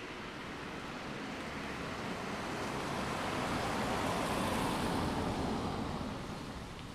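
A vehicle passing by: a rush of tyre and road noise that swells to a peak about four to five seconds in, then fades.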